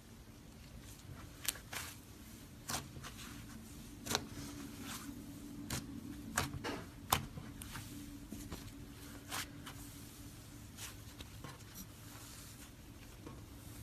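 Slime being pressed and stretched by hand, giving irregular sharp pops and crackles as air pockets burst, most frequent in the middle, over a faint steady hum.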